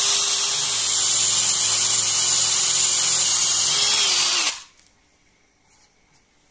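Power drill running a countersink wood drill bit into a softwood board, a steady motor whine under load. It stops abruptly about four and a half seconds in, leaving only a faint click or two.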